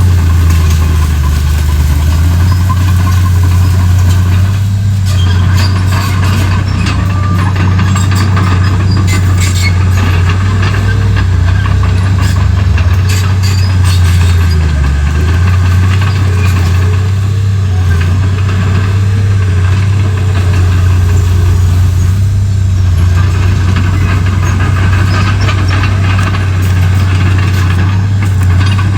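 Komatsu D31P crawler bulldozer's diesel engine running steadily, a deep even drone, with scattered sharp clicks and rattles throughout.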